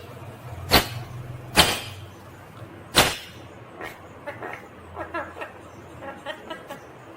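Three sharp, loud cracks in the first three seconds, then from about four seconds in a run of short chirping calls from an Indian ringneck parakeet, over a steady low hum.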